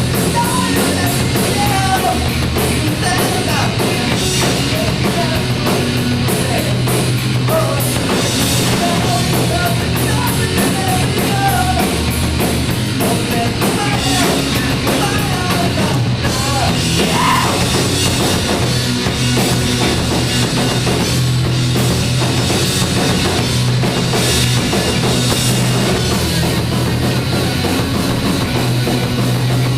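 A rock band playing live, a loud drum kit and electric guitars going at full volume without a break.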